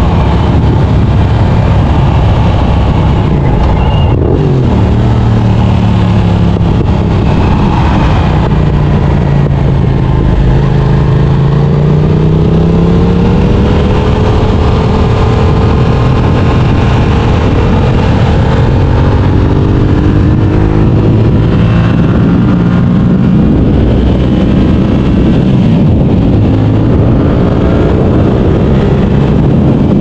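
Yamaha R7's 689 cc parallel-twin engine through an Akrapovic exhaust under way on the road. Its pitch shifts sharply about four seconds in, then climbs and holds with throttle and gear changes, and the bike speeds up hard in the second half, over steady wind rush.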